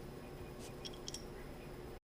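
A handful of faint, small clicks and ticks from a precision screwdriver and tiny screws as they are fitted into a MacBook Pro, over a steady low background hum.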